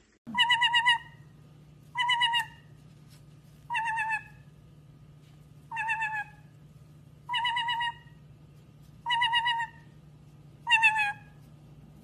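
White-bellied caique giving a short warbling whistle, repeated seven times at an even pace, about once every second and a half to two seconds. A faint steady low hum runs underneath.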